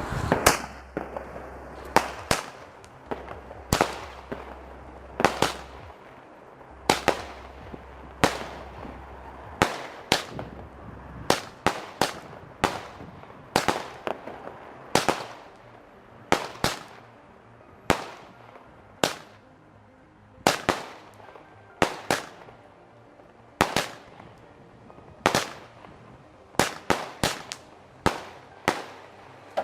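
Fireworks going off in a long series of loud bangs, roughly one a second, each followed by a short echo.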